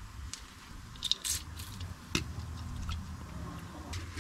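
A few sharp clicks and light scrapes of hands working the ABS sensor wire and its plastic clips loose at a front steering knuckle, with one louder click about two seconds in, over a low steady hum.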